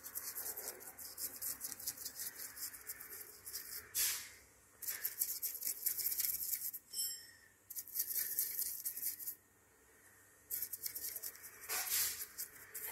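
Small brush scrubbing acetone over a cylinder head surface to wash off sooty oil deposits. It comes as runs of quick scratchy bristle strokes with brief pauses.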